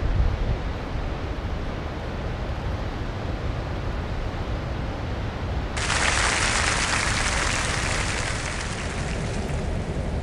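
Wind rumbling on the microphone over surf breaking on a rocky shore. About six seconds in, a louder, steady hiss sets in abruptly.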